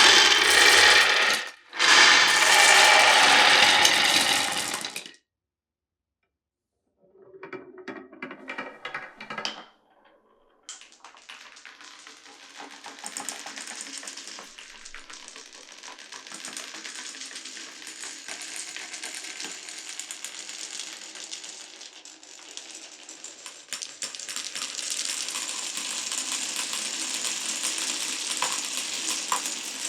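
Glass marbles running down a wooden marble run: quick clicks for a few seconds, then from about ten seconds in many marbles rattling steadily along wooden blocks and track, louder again near the end. It opens with about five seconds of a loud, dense noise, broken by a short gap, then a short silence.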